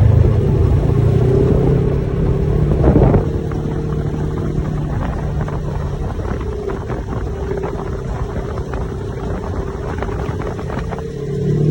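Side-by-side UTV engine running steadily with frequent short rattles and knocks, and a louder clatter about three seconds in.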